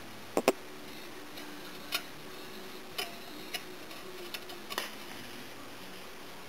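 A few irregular sharp clicks and taps, two close together about half a second in, then single ones about every second, over a faint steady hum.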